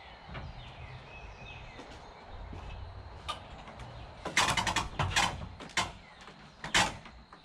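A cluster of sharp knocks and clatters, about a second long, just past halfway, then one more knock near the end, as gazebo frame pieces are handled and fitted. Birds chirp faintly in the first two seconds.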